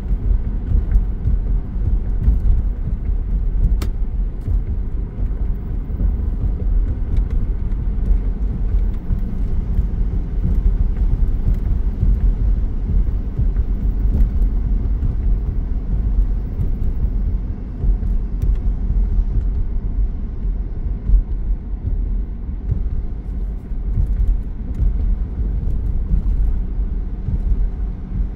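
Car driving on a mountain road: a steady low rumble of engine and tyre noise, unbroken throughout.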